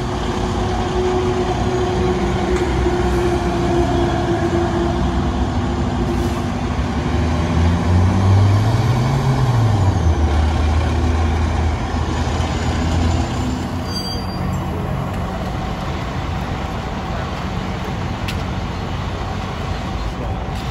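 Diesel engine of a fire truck running loudly, its pitch rising and then falling once about eight to nine seconds in.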